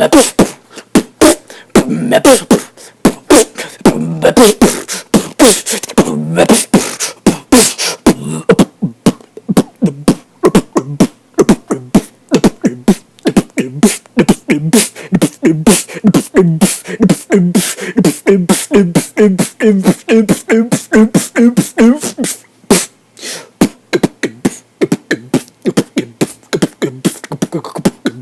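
Solo human beatboxing: a fast, continuous stream of mouth-made kick, snare and hi-hat clicks, mixed with hummed and voiced bass tones that grow denser in the middle of the routine.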